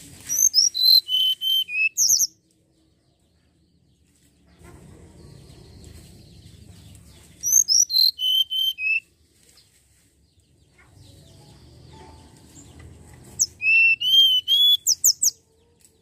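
Hill blue flycatcher singing: three short phrases of quick, high, clear whistled notes that step down in pitch, a few seconds apart, with a faint low rumble in the gaps.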